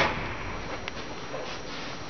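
A single sharp knock, then a steady low background hum with two faint clicks.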